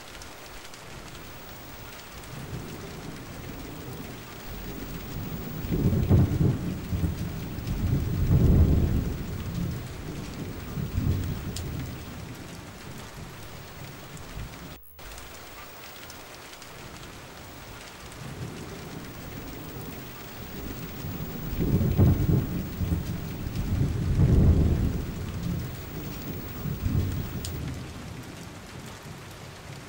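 Steady rain with two long rolls of thunder, one in each half, each swelling and fading over several seconds. Near the middle the sound briefly cuts out.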